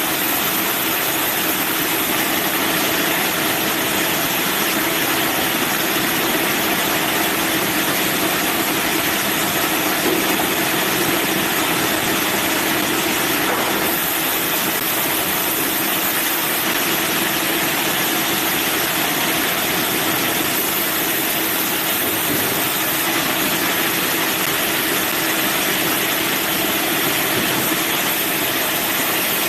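Band sawmill running with a steady, unbroken mechanical noise and a constant hum.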